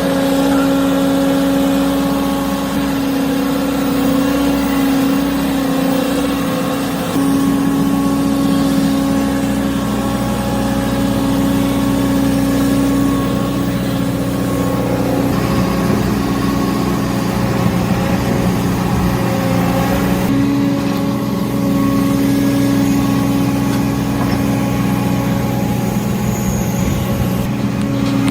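Excavator's diesel engine running steadily, with slight changes in its note about a third of the way in and again past the two-thirds mark.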